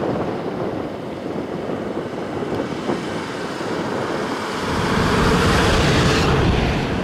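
Wind buffeting the microphone in a steady rush, swelling into a stronger gust about five seconds in.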